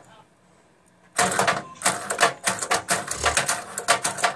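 Model Tahoe lowrider kit hopping on its hydraulics, its body and wheels clattering against a metal grille in a fast run of knocks, about six a second, that starts a little over a second in.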